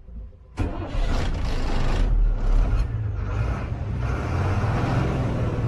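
Ashok Leyland bus's BS3 diesel engine running with a heavy low rumble. It comes in abruptly about half a second in.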